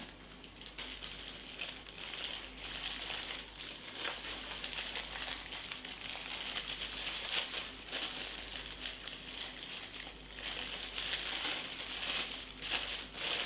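Packaging crinkling and rustling as it is handled, a continuous irregular crackle.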